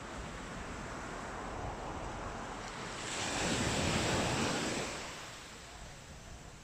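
Sea waves washing onto the beach. One wave breaks and swells loudest about three to four seconds in, then recedes.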